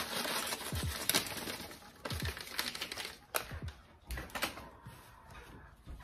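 A paper bag of dry stuffing mix rustling and crinkling as it is emptied into a saucepan, with scattered knocks and clicks. It is loudest for the first two seconds and quieter after.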